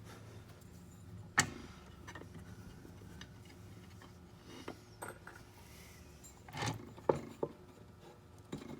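Scattered sharp clicks and knocks of small metal parts and tools being handled on a workbench, the loudest about a second and a half in and a cluster around seven seconds in, over a low steady hum.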